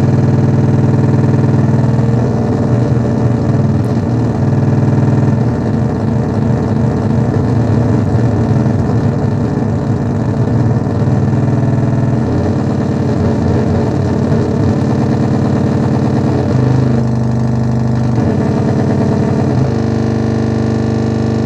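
DIY analog drone/noise synthesizer (three interacting triangle-wave oscillators through a filter with overdrive) playing a loud, distorted buzzing drone. About two seconds in, the drone turns rough and unstable, then shifts again around three quarters through and settles into a steady buzz near the end.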